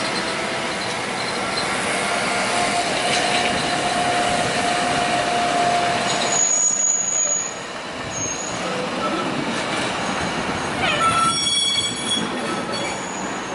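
Red on-track maintenance-of-way machines rolling through a railroad grade crossing: steel wheels on rail with engine noise and a thin, steady wheel squeal for a few seconds.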